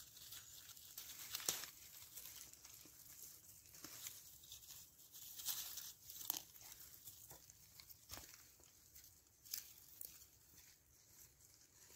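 Wild herbs being pulled up by hand: faint rustling of foliage and dry leaf litter, with several sharp snaps and tearing of stems at irregular intervals.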